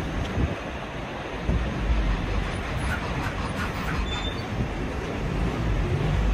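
Scania lorry's diesel engine running at low speed as the tractor unit reverses its low-loader trailer, with uneven low rumble from wind on the microphone.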